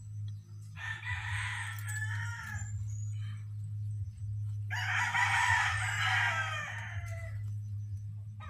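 A rooster crowing twice, a shorter crow about a second in and a longer one near the middle, over a steady low hum.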